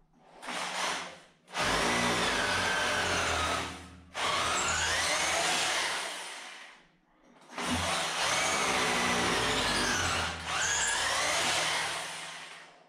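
Hammer drill boring anchor holes into a concrete slab. It runs in a short burst and then four long runs of a few seconds each, with brief stops between, and its pitch wavers as it works.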